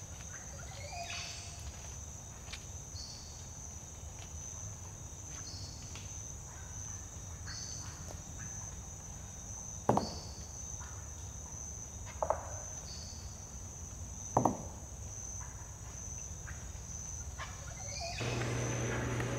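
Rainforest insects calling: a steady high-pitched drone with a shorter high chirp repeating every second or two. Midway, three loud, sharp, very short sounds come about two seconds apart. Near the end the background changes to a denser hiss with a low hum.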